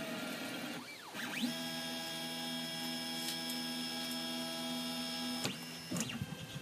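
Stepper motors of a ZAGI-18 3D printer whining as the machine moves while printing icing. About a second in, the pitch dips and rises, then holds as a steady whine for about four seconds before cutting off. Short rising and falling chirps follow near the end.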